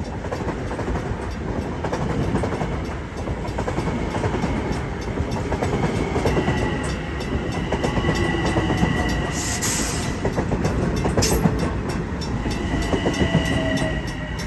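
Long Island Rail Road train passing close by, a steady rumble with rapid clickety-clack of wheels over rail joints. A steady high whine joins about six seconds in, with two short high hisses near the middle.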